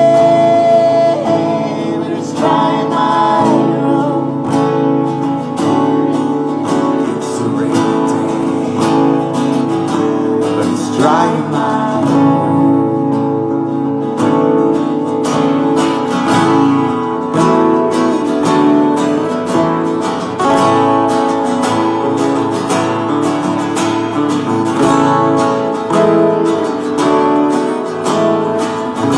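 Two acoustic guitars strumming an instrumental outro of a live folk song, the last sung note held briefly at the very start.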